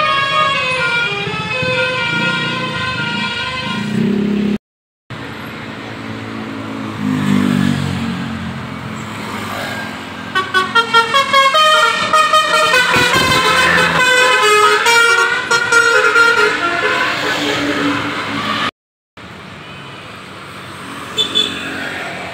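Bus 'telolet basuri' musical horn playing a tune of quickly stepping notes, loud and sustained. It is broken by two short cuts into separate horn clips, and it is faint in the last few seconds.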